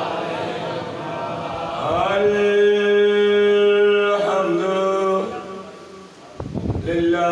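A man's voice chanting through a microphone: a zakir's sung recitation. It declaims at first, then holds long, steady notes, with a step in pitch about four seconds in. It breaks off briefly and takes up another held note near the end.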